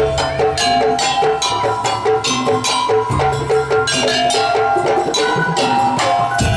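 Madurese daul (tong-tong) percussion ensemble playing: a fast, dense rhythm of pitched strikes over a recurring low drum.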